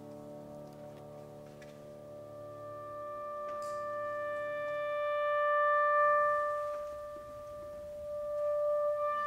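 A piano chord from a Steinway grand dies away, then a clarinet enters with one long held note that swells and fades, and a further note follows near the end.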